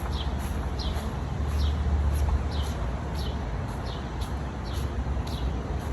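A bird calling over and over in short falling chirps, about one every 0.7 seconds, over a steady low rumble.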